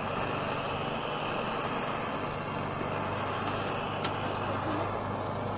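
Hand-held propane torch burning with a steady hiss as its flame is played over an oak pallet-wood board to scorch it dark; the cylinder is running low on propane.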